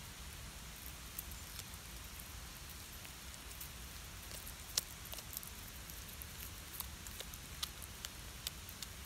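Domestic cat crunching and chewing a whole raw river fish, bones and all: a run of irregular, sharp crunches, the loudest about halfway through.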